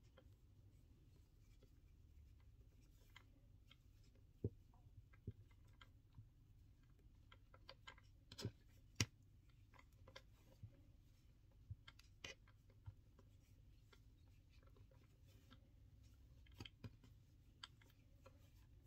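Near silence, with faint rustles and scattered soft clicks from hands knotting macrame cord for a keychain. A few sharper clicks stand out, the loudest about nine seconds in.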